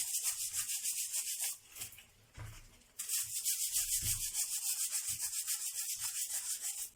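A handheld brush scrubbing the soaked brush roll of a Vax Blade 4 vacuum cleaner in quick back-and-forth strokes, about eight a second. The scrubbing stops for about a second and a half partway through, then carries on.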